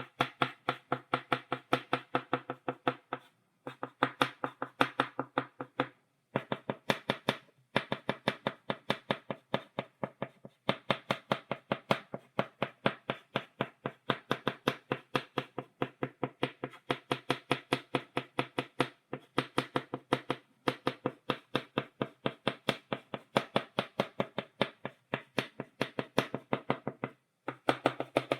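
Chalk tapped rapidly against a blackboard, dotting, a sharp click several times a second with a few short pauses between runs.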